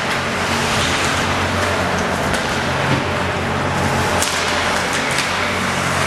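Ice hockey rink during play: a steady wash of noise with a low steady hum beneath, broken by a few sharp knocks and clicks of sticks, puck and boards.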